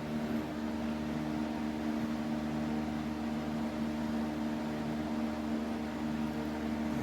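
A steady machine hum: an even, low droning tone over a soft hiss, with no change.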